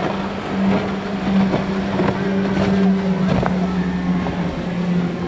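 Single Mercury 200 hp outboard on a Boston Whaler running at speed, a steady engine drone over the rushing wash of the hull through the water.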